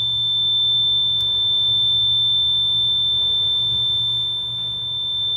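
Honeywell all-in-one alarm control panel's built-in sounder giving a steady, unbroken high-pitched alarm tone: a police keypad panic alarm in progress.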